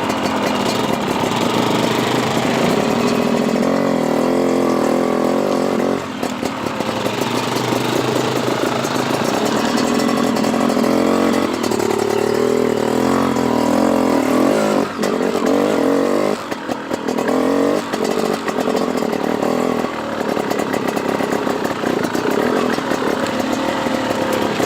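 Dirt bike engine running under constantly changing throttle, revving up and easing off again and again, with a few brief drops in level as the throttle is chopped.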